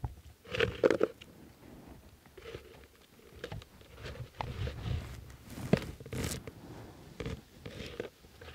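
Scattered light knocks, scrapes and rustles of wild blueberries being picked into a birch-bark basket, with branches and leaves brushed by the hand. A few louder knocks come about a second in and again around six seconds.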